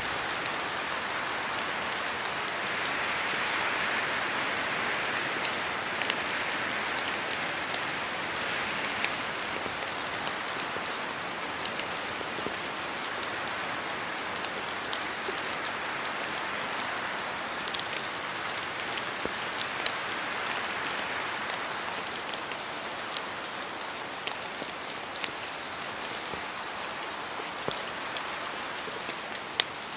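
Steady rain falling in a forest: an even hiss with many sharp drop ticks scattered through it. The hiss swells a little a few seconds in, then eases.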